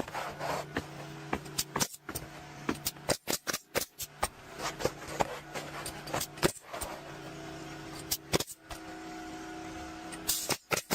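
Roofing nail gun firing, often several shots in quick succession, as shingles are nailed down, over a steady motor drone.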